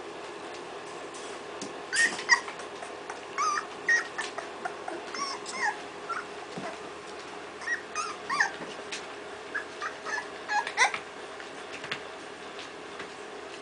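Three-week-old puppies whimpering and squeaking in many short, high yips, often overlapping, starting about two seconds in and dying down near the end.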